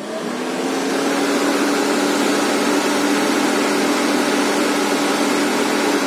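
Opel Corsa D's electric radiator cooling fan running at its third, top speed: it spins up over the first second with a rising hum and rush of air, runs steadily and loudly, then begins to wind down at the very end.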